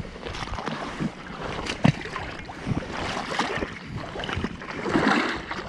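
Wind buffeting the microphone over lapping lake water at the shoreline, with scattered knocks and a sharp one about two seconds in.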